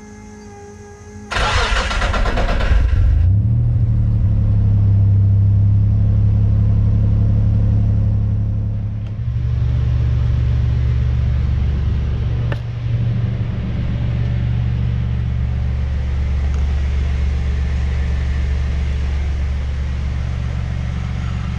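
Nissan Navara's VG30 3.0-litre V6 cranking and starting about a second in, then running steadily. Its note deepens about nine seconds in.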